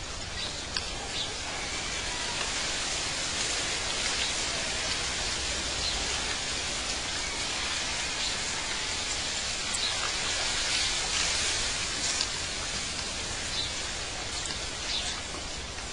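Outdoor nature ambience: a steady, hissing wash of sound with a few brief, high chirps scattered through it.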